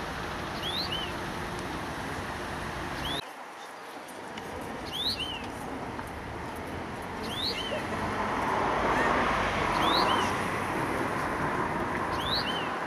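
A small bird giving the same two-note call over and over, a short rising chirp followed by a lower note, about every two to two and a half seconds. Behind it is a steady hum of traffic noise that drops suddenly about three seconds in and swells again later.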